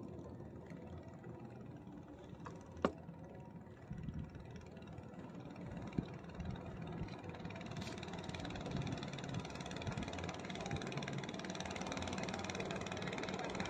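A motor running steadily, growing gradually louder toward the end, with one sharp click about three seconds in.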